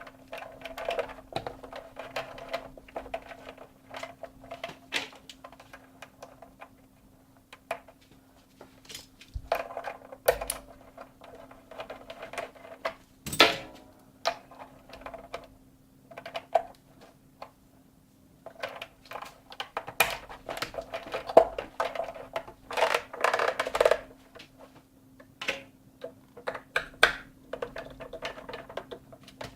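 Irregular clicks and knocks of metal parts and tools being handled on a vintage Husqvarna Viking sewing machine, some sharper than others, with no steady rhythm, over a faint steady hum.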